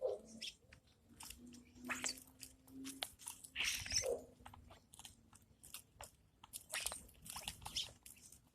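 Irregular crisp crunching and clicking, as of something hard being chewed or cracked, with a faint low hum in the first few seconds.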